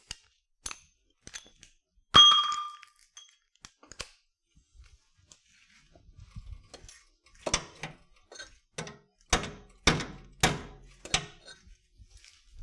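Metal tools and car parts clinking and knocking during work under a car. About two seconds in there is one loud metallic clink that rings briefly, and after a quiet stretch a run of about seven sharp knocks comes near the end.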